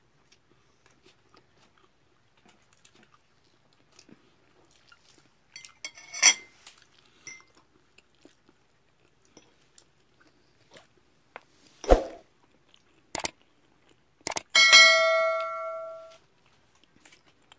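Subscribe-button animation sound effects: a thump, two sharp clicks, then a loud bell notification ding that rings out for about a second and a half. A brief metallic clink about six seconds in.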